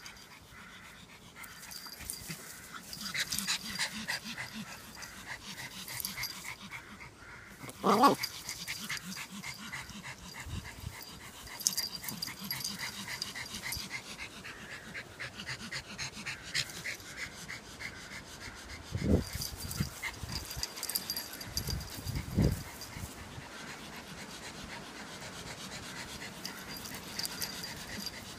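A Yorkshire terrier and another small dog at play, with fast, even breathing sounds through most of it, one sharp cry about eight seconds in, and two low thumps later.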